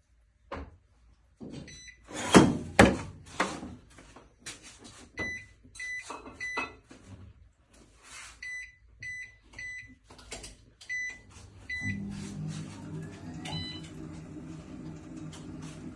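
Strike 2 automatic wheel balancing machine: a few knocks, then about nine short high beeps as its control-panel buttons are pressed. About twelve seconds in, its motor starts spinning the shaft with a steady hum.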